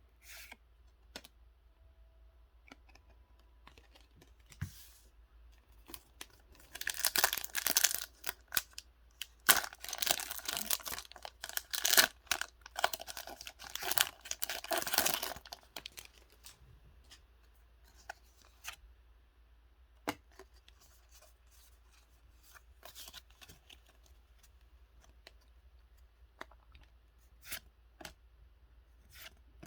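Plastic packaging of a Pokémon trading card box being torn open and crinkled by hand. A dense spell of ripping and crackling runs for about nine seconds in the middle, with light rustles and clicks of handling before and after.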